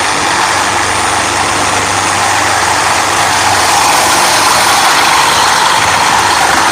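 DeWalt DCS389 60-volt cordless reciprocating saw with a brand new blade, sawing steadily through steel Unistrut strut channel with a straight, non-orbital stroke.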